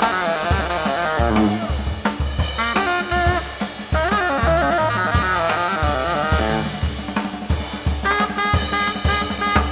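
Tenor saxophone soloing in a live jazz band, playing phrases of bending, wavering notes over a drum kit.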